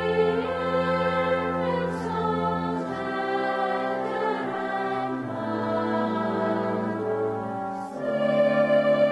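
Choral music: a choir sings a slow succession of held chords, moving to a new chord about every two to three seconds.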